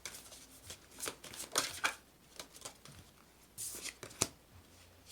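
Tarot cards being shuffled and handled: a run of quick, irregular card flicks and snaps. There is a quieter pause in the middle and a sharp snap near the end.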